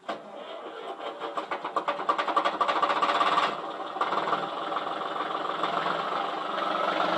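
Car engine being started: the starter cranks in quickening strokes, the engine catches after about three and a half seconds and settles into a steady run.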